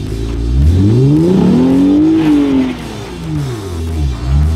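Jeep engine revving hard: the pitch climbs for about a second and a half, holds near the top, then falls away, with a second short blip of throttle near the end. Rock music plays underneath.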